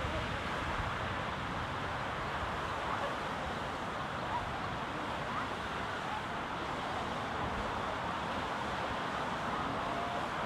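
Steady outdoor urban ambience: an even rushing noise with no distinct events.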